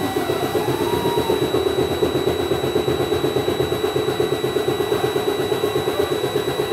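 Freightliner Cascadia's Detroit DD15 diesel engine starting up and running with an even pulsing beat of about seven a second, heard from inside the cab. Over it the dash warning buzzer holds a steady high tone, the alert for low brake air supply pressure.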